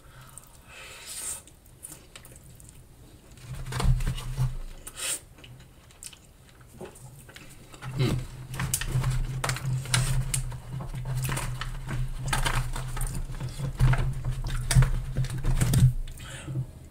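Close-miked chewing of a mouthful of saucy loaded fries, with wet mouth clicks. From about eight seconds in comes a dense run of crinkles and taps as fingers handle and dig into a crumpled aluminium foil tray.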